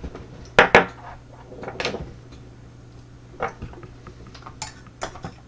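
Scattered sharp metallic clicks and clinks of small tools and tiny lock pins being handled while a pin-tumbler lock is taken apart, loudest just under a second in.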